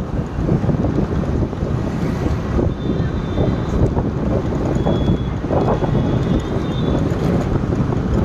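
Steady rumble of a vehicle driving along a city road, with wind buffeting the microphone.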